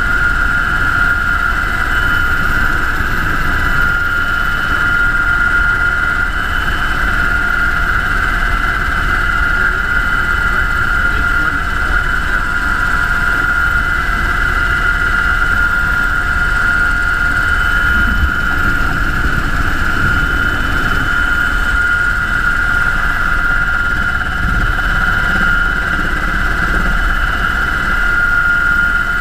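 UH-60 Black Hawk helicopter in flight, its twin turboshaft engines and rotors running steadily: a constant high whine over a low rumble, unchanging throughout.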